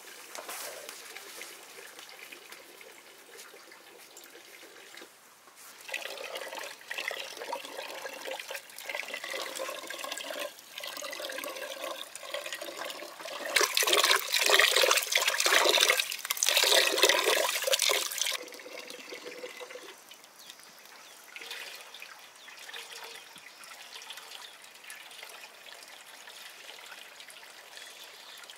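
Water being poured and splashed in a vessel, rising to a few seconds of heavy pouring about halfway through, then dying away to faint trickles and drips.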